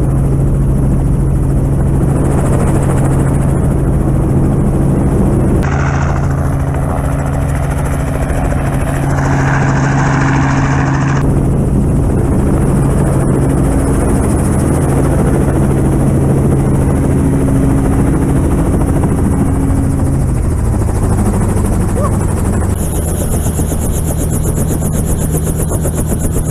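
Helicopter's engine and rotor running loud and steady as it sets down, a constant hum over rushing noise. About twenty seconds in, the hum drops in pitch.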